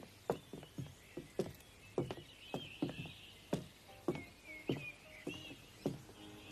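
Horse hooves clopping in an uneven rhythm, a few beats a second, with faint high chirping behind.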